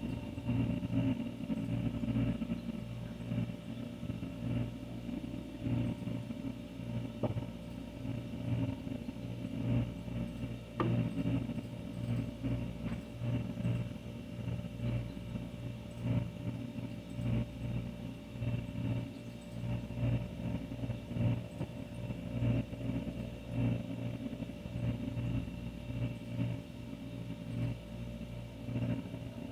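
An older refrigerator running with a steady low hum, the level wavering slightly; a faint tick about seven seconds in and another about eleven seconds in.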